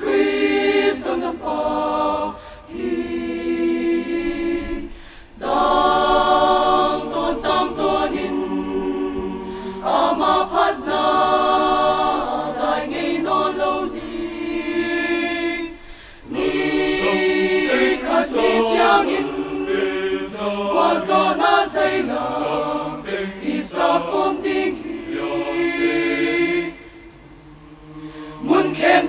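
Mixed choir of men and women singing a hymn of praise, in sustained phrases with brief pauses between them and a short quiet lull near the end.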